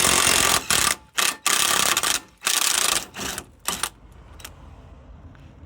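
Rapid ratcheting clicks in about five loud bursts over the first four seconds, each stopping and starting again, then only a faint background.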